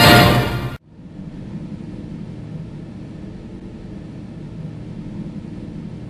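Loud orchestral fanfare that cuts off abruptly under a second in, followed by a steady low rumbling noise with a faint hiss.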